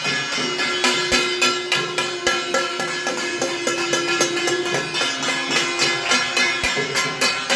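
Music with a quick, steady percussive beat under a long held note.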